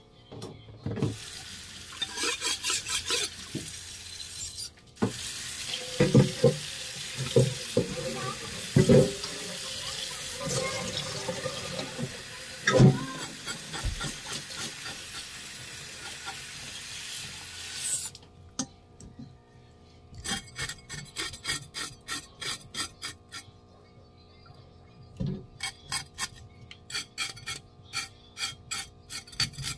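Tap water running into a stainless steel bowl in a sink while a tuna tail is washed by hand, with knocks of the fish against the bowl. About two-thirds of the way through the running water stops, and quick rhythmic rubbing strokes follow as the fish is scrubbed by hand.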